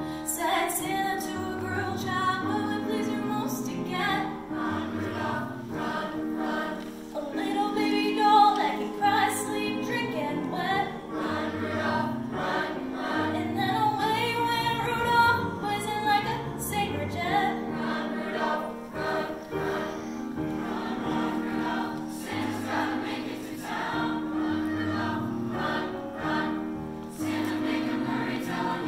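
Mixed high school choir singing with piano accompaniment, with a female soloist singing over the choir into a microphone.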